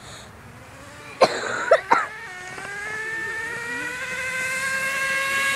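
Gas RC car's small engine giving a few sharp pops about a second in, then running with a high-pitched tone that climbs slowly in pitch and grows louder.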